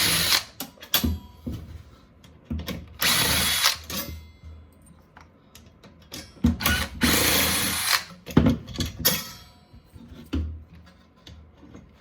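Cordless Porter-Cable drill driving screws out in two short runs, about three seconds in and again from about six and a half seconds, with clicks and knocks of the screws and sheet metal being handled between.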